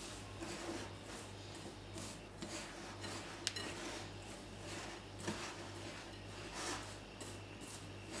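Hands rubbing moistened coarse semolina in a glass bowl: a soft, uneven gritty rustling as the grains are worked between the palms without kneading, with a sharp tick about three and a half seconds in.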